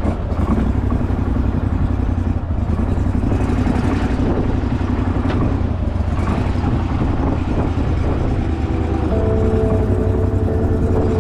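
Gator-Tail surface-drive mud motor running steadily, pushing the boat along under way.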